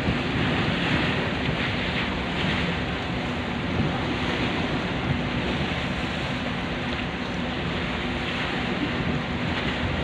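Rough, choppy sea washing and splashing against a concrete breakwater, with wind buffeting the microphone and a faint steady low hum underneath.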